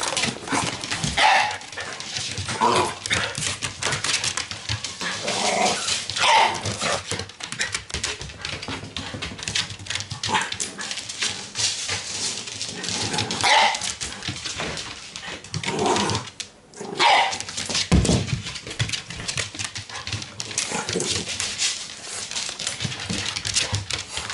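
Shiba Inus barking excitedly, a bark every second or few.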